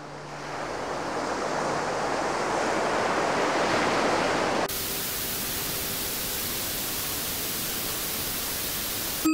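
Giraffe sound soother playing its ocean-waves sound: a surf wash that swells steadily louder. About four and a half seconds in, it switches abruptly to the soother's steady white noise.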